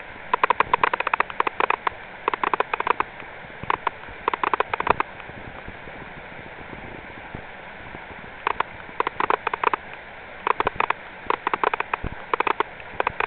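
Mountain stream flowing steadily, with repeated clusters of sharp, rapid clicks over it that come and go, the longest near the end.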